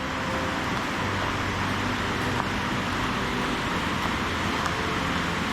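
Waterfall cascade, its water rushing in a steady, even roar.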